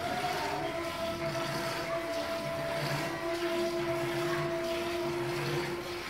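Milk squirting from a cow's teat into a plastic bucket of frothy milk during hand milking, a steady hissing stream. Under it runs a steady motor-like hum with two held tones.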